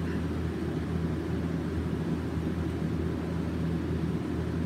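Steady low hum and rumble of indoor room noise, with no other event standing out.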